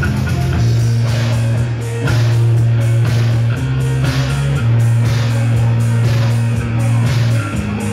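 Live rock band playing: long held low notes, with a drum kit hitting over them. Electric bass guitar, keyboard and drums make up the band.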